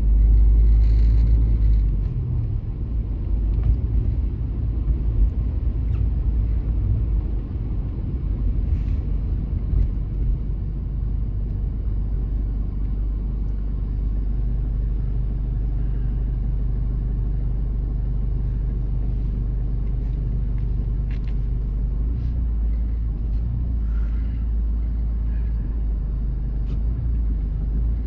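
Low, steady rumble of a Mercedes car's engine and tyres heard from inside the cabin while driving, a little louder for the first two seconds.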